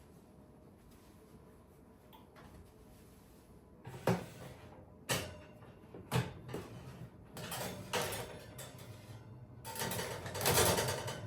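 Household handling sounds: a few sharp knocks and clicks of objects being set down or moved, then a denser clatter and rustle near the end.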